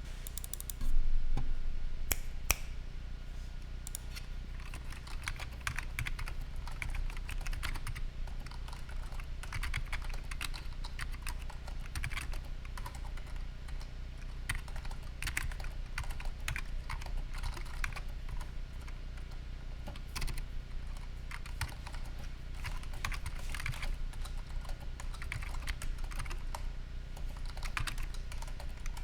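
Fast typing on a Matias Ergo Pro mechanical keyboard: a continuous, irregular run of key clicks and keystrokes, louder for a moment about a second in, over a steady low hum.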